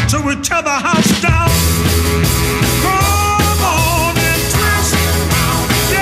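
Rock and roll band music with a steady beat. The bass and drums drop out for about a second near the start, then the full band comes back in.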